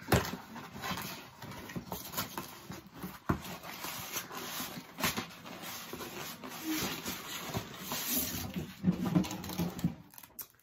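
Packaging being handled and unwrapped: a continuous crinkling rustle with a few sharp taps, the loudest near the start.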